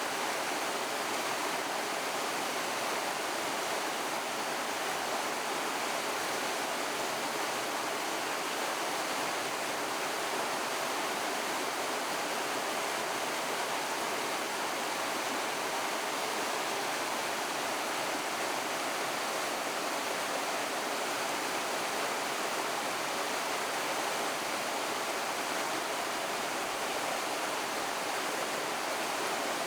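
River waterfall: water rushing steadily over rocks, an even, unbroken rush.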